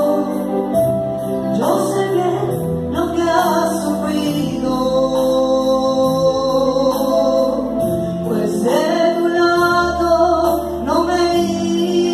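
A woman singing a slow Catholic meditation song into a microphone, accompanied by sustained electronic keyboard chords.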